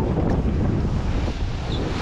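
Wind buffeting the microphone on a small motorboat under way, with water rushing along the hull.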